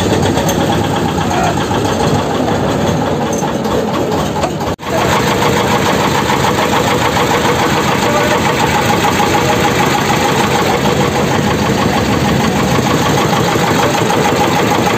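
Passenger motorboat's engine running steadily and loud, with a fast, even chug. It drops out for an instant about five seconds in, then carries on.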